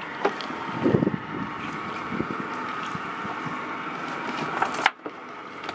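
Boat engine running steadily while a wet trap line is hauled in hand over hand over the bow, with a thump about a second in and small knocks.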